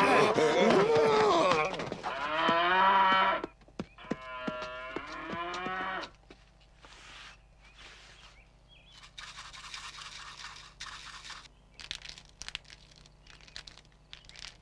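A cow bellowing in three long calls, the last one softer, followed by faint clicks and scrapes.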